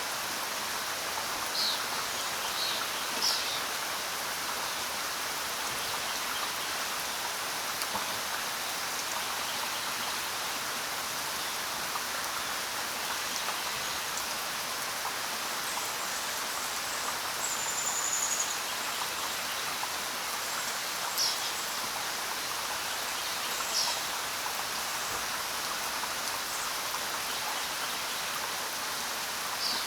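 Steady hiss of rain and running water, with a few short, high bird chirps scattered through it, one a brief whistle about halfway.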